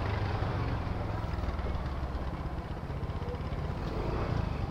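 Motorcycle engine running steadily with a low rumble.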